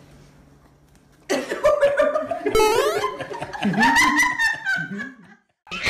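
People laughing, with high, bending vocal sounds, starting about a second in and cutting off suddenly near the end.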